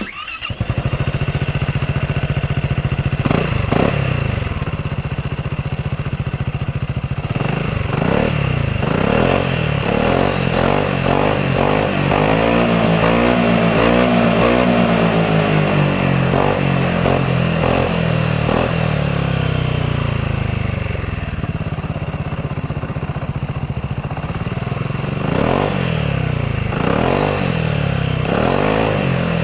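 Voge SR4 scooter engine running through a GPR Pentaroad stainless-steel exhaust. It idles and is revved again and again in short blips, with a longer run of back-to-back revs in the middle.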